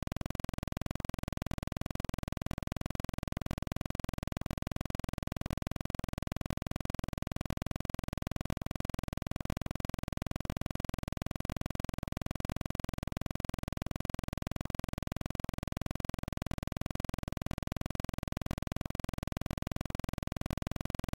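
Background music with guitar, at a steady level throughout.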